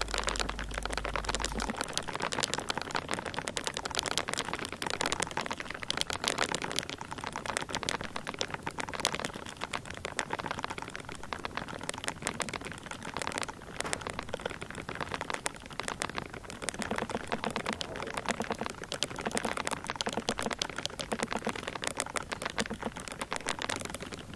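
Termites rapidly tapping their heads against a plastic bait bag, a dense crackling patter of tiny clicks. The head-banging is their alarm signal, warning the colony of disturbance.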